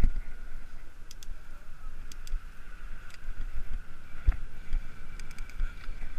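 Riding noise from a moving hybrid bicycle: wind buffeting the camera microphone with low rumbling thumps, a faint steady hum, and scattered sharp clicks and rattles from the bike. The loudest thump comes about four seconds in.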